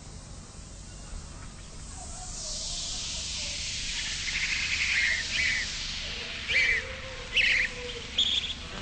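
Small birds chirping in short, quick trills, repeated several times, over a steady hiss that fades in during the first few seconds.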